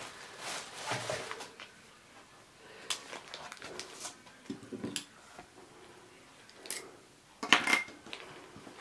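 Cellophane-wrapped craft kit handled on a cutting mat: plastic crinkling and scattered light taps and clicks, with a louder rustle near the end.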